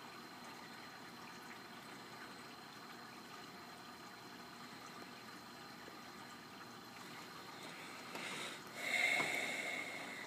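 Aquarium water moved by a VorTech MP40w powerhead, a steady low wash of moving water with a faint steady high whine. About eight seconds in it swells into a louder gush that peaks and slowly fades.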